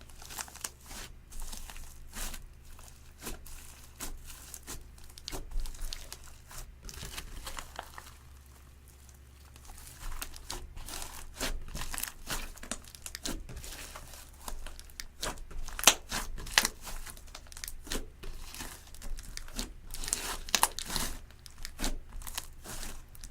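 Clear slime mixed with eyeshadow and glitter being worked by hand, giving dense sticky crackles and popping clicks, with a quieter stretch about eight seconds in.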